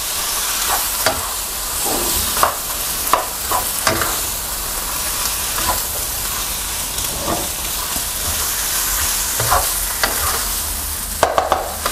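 Wide rice noodles, chicken, squid and egg sizzling in a hot nonstick wok as a wooden spatula stirs and tosses them. Irregular scrapes and knocks of the spatula against the pan sound over a steady sizzle.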